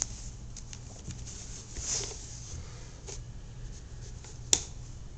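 Close scratchy rustling of a hand stroking a dog's fur next to the microphone, with one sharp click near the end.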